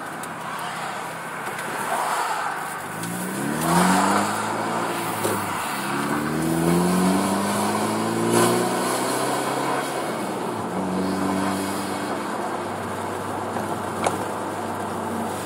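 Hyundai Veloster Turbo's 1.6-litre turbo four-cylinder through a custom Magnaflow exhaust, heard through an open driver's window: the engine note rises as the car pulls away, breaks at a gear change about five and a half seconds in, rises again, then settles to a steady cruise.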